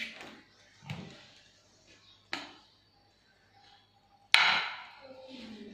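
Kitchen knife cutting a peeled mango into chunks over a ceramic plate, the blade knocking against the plate three times; the loudest knock, a little past four seconds, rings briefly.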